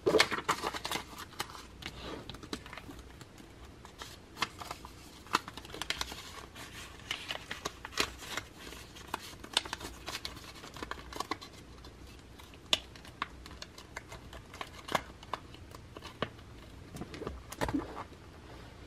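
Paper banknotes being handled and slid into a plastic zip envelope in a ring binder: soft rustling and crinkling with scattered small clicks, and a busier patch of handling near the end as the binder is closed.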